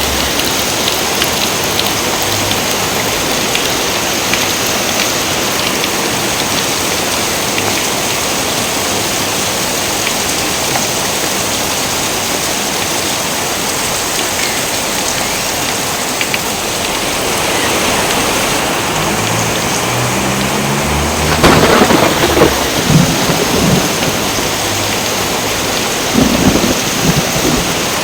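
Steady heavy rain with thunder: a low rumble builds about two-thirds of the way through, then loud thunder cracks and rolls, with another burst of thunder near the end.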